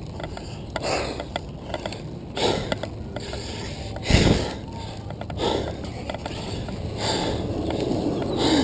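A handcyclist breathing hard in repeated breaths about every second and a half, over the steady running of the handcycle's chain drive and tyres on pavement.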